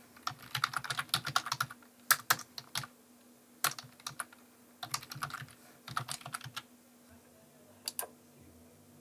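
Typing on a computer keyboard: quick runs of keystrokes in several bursts with short pauses between, the longest run in the first two seconds.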